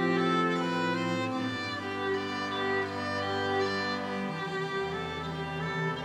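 String ensemble of violins, cellos and a double bass playing slow bowed chords, the notes held long and the harmony shifting about a second and a half in and again near four and a half seconds.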